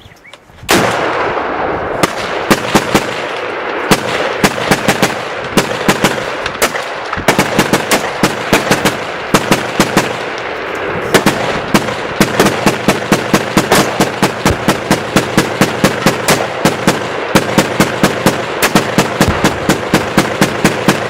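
Several guns fired at once by a group of shooters: one loud shot about a second in, then a continuous barrage of rapid, overlapping shots, several a second.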